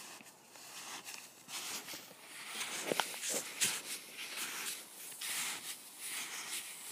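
Homemade Tom Roycroft ski shoes sliding and crunching through very wet snow, step after step, growing louder after about two seconds. A couple of sharp knocks come about three seconds in.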